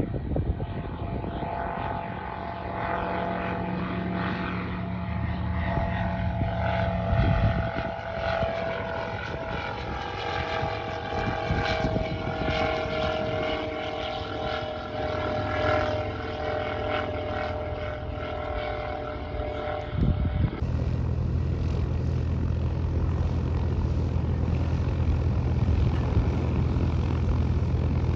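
Light propeller airplane's piston engine running, its note falling slowly. About 20 seconds in, the sound changes abruptly to a steadier, lower engine drone.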